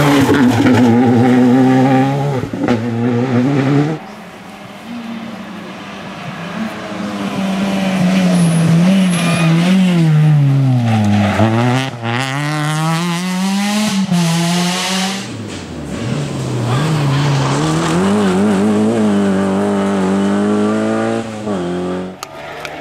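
Rally cars driven hard one after another, engines revving up and dropping back through gear changes as they brake for and power out of corners. The sound changes abruptly several times as one car's pass cuts to the next.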